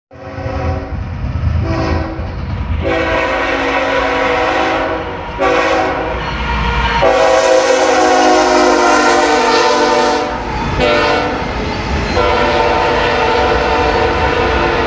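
CSX freight locomotive's air horn sounding a chord of several notes in a series of blasts, one long blast in the middle, as the train passes close by. This is the horn signal for a street grade crossing. Under it the locomotives and freight cars rumble over the rails.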